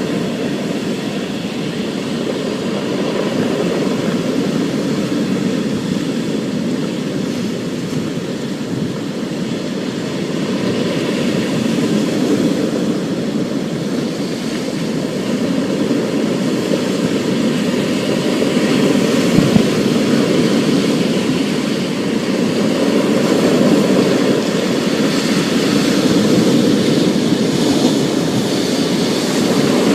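Thunderstorm: a steady hiss of rain over a low rumble that slowly swells and eases, with one brief sharp crack about twenty seconds in.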